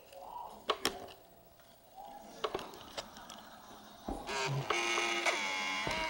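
A few small clicks and taps as the power pads on a white MacBook A1181's logic board are bridged. About four seconds in, a click and then the machine starts up with a steady mechanical whir carrying a faint whine, which stops just before the end.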